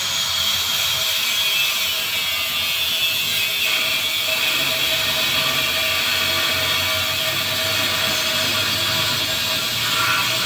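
A motor running steadily, a constant hum with a high whine over a hiss.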